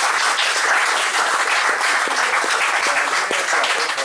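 Audience clapping and applauding steadily.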